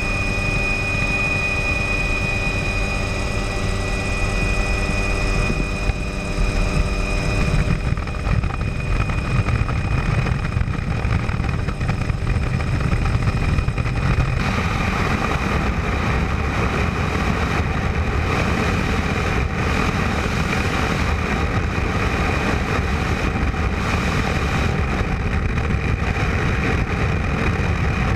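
Tour helicopter in flight, its turbine engine and rotor running steadily. A whine made of several steady tones sits over a low rumble; after several seconds the tones fade and a broad rushing noise takes over.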